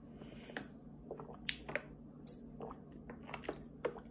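A person drinking from a plastic water bottle: a scattering of short, faint swallows and small clicks and squishes from the mouth and bottle.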